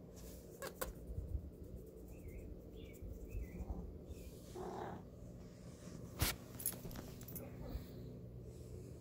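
Kitten making a few faint short chirps and a brief low meow, with scattered sharp clicks of handling; the loudest click comes a little after the middle.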